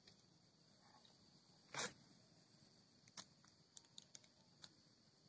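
Faint steady chirring of insects, likely crickets. A brief rushing swish comes nearly two seconds in, and a few light clicks follow near the end.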